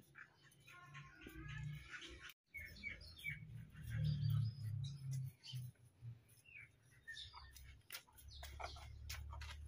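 Birds chirping over a low hum, with a brief dropout to silence about two and a half seconds in.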